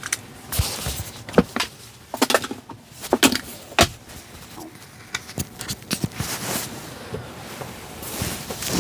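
Irregular clicks, taps and rustling from small objects being handled inside the car cabin, with the sharpest knocks about one and a half, three and four seconds in.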